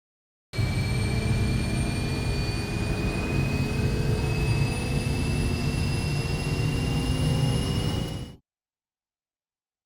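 Analog-synthesizer sound effect recreating a spaceship's warp: a dense low rumble with a noisy texture under a thin high whine that slowly rises in pitch. It starts suddenly about half a second in and cuts off abruptly near the end.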